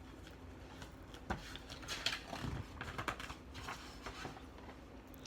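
Faint, irregular small clicks and soft rustles of a picture book's paper pages being handled and turned.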